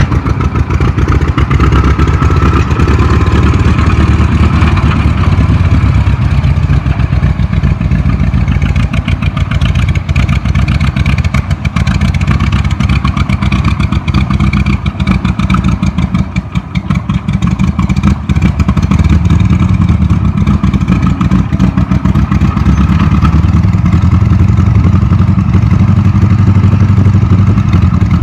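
Caterpillar 22 crawler tractor's four-cylinder engine running under load as it pulls a tumblebug scraper, with rapid, even exhaust beats. It dips a little in loudness around the middle and grows louder again near the end.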